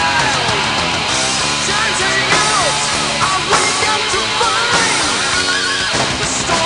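Loud rock music: a full band playing, with a lead line that bends up and down in pitch.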